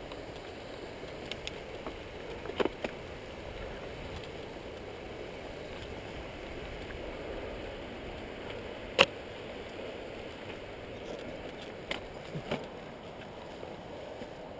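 Mountain bike rolling along a dirt singletrack: steady tyre-on-dirt and rushing noise, with a few sharp knocks and rattles as the bike goes over bumps, the loudest about nine seconds in.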